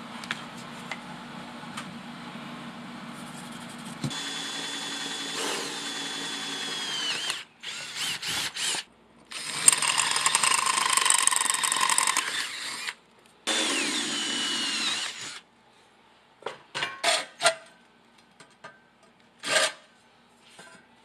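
Electric drill boring holes through a steel plate: three runs of a few seconds, the motor whine falling as it spins down after two of them, then several short trigger bursts near the end while the edge of a hole is cleaned up.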